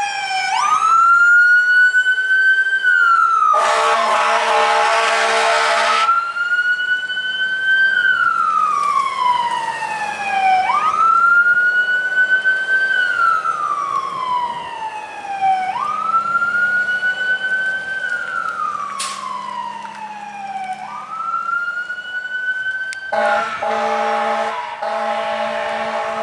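Fire engine siren wailing, each cycle rising quickly, holding, then sliding slowly down, about every five seconds. Two long blasts of the truck's air horn sound over it, one about four seconds in and one near the end.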